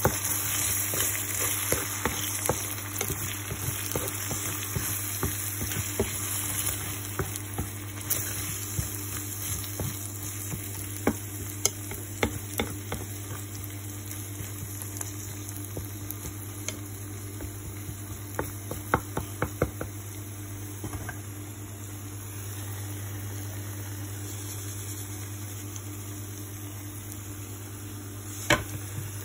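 Eggs and tuna frying in a non-stick pan, sizzling, while a wooden spatula stirs them with scattered taps and scrapes against the pan. The sizzling eases off somewhat in the second half, and there is one sharper knock near the end.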